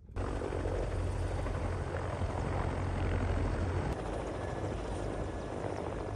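Military helicopter running, its rotor giving a steady heavy low throb under a dense rush of engine and rotor noise. The sound cuts in abruptly and shifts slightly, a little quieter, about four seconds in.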